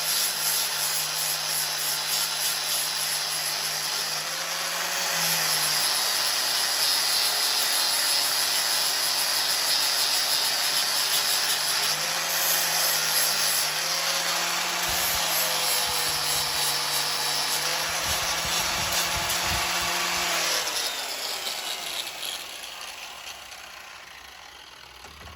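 Electric grinder running and grinding steel off an old spanner, its note dipping now and then as the work presses on it. About 20 seconds in it is switched off and slowly spins down.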